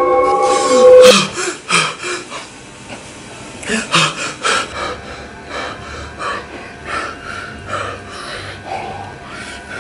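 A man breathing hard in ragged, irregular gasps and panting breaths, as if in distress. A held tone from the soundtrack cuts off suddenly about a second in.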